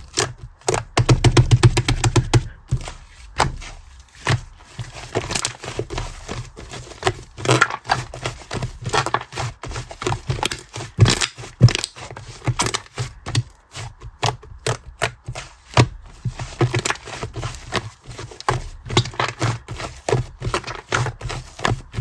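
Fluffy slime being squished and pressed by hand, giving a string of sharp, irregular popping clicks and crackles, with a quick rapid run of pops about a second in.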